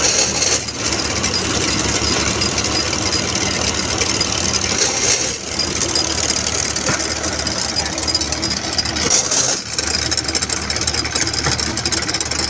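Engine-driven brick-making machine running steadily, the engine and its chain and belt drive turning as the clay column is pushed out along the conveyor. A short hiss recurs every four to five seconds.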